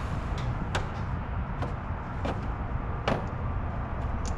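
Scattered light clicks and taps of metal parts being handled at a truck's battery under the open hood, the sharpest about three seconds in, over a steady low rumble.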